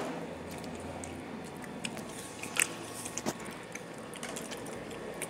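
Table noise of a group eating: a low background with a few scattered clinks of dishes and glasses, the clearest about two and a half and three and a quarter seconds in.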